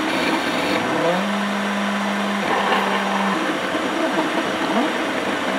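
CNC milling machine running while cutting metal couplings: a steady machining noise, with motor tones sliding up and down in pitch and a held tone from about one to three seconds in.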